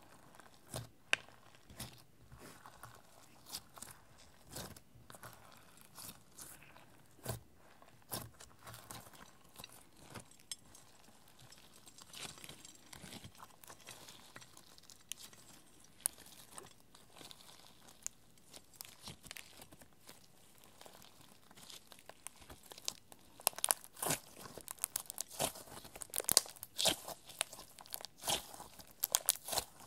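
Clear slime loaded with glitter, sequins and eyeshadow powder being kneaded and pulled apart by hand, making sticky pops and crackles. The pops come thicker and louder during the last quarter or so.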